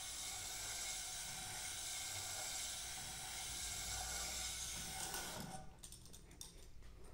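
Spring-loaded stone cylinder hone spun by a cordless drill in a WD-40-wetted cylinder bore of a Honda CBX 1000 engine, the stones scraping the wall with a steady hiss as it is worked back and forth to break the glaze and lay down cross-hatching for the rings to seat. The hiss stops about five and a half seconds in, followed by a few clicks as the hone is pulled out.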